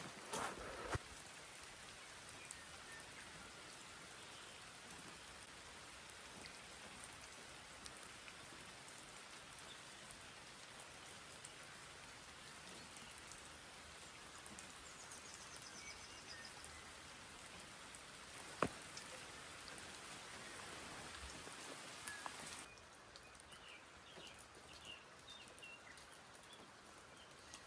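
Steady rain falling, a soft, even hiss with a single sharp tick about two-thirds of the way in. Near the end the hiss drops abruptly to a quieter rain with a few faint chirps.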